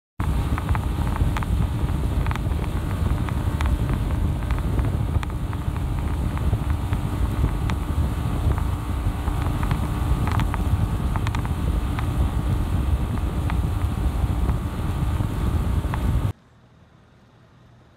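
Fishing boat under way at speed: steady engine and water noise with wind buffeting the microphone and scattered knocks and rattles. It cuts off suddenly about two seconds before the end.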